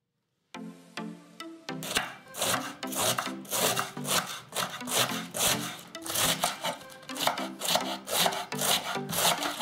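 Kitchen knife shredding a head of white cabbage on a wooden cutting board: repeated slicing cuts about twice a second, starting about two seconds in, over background music.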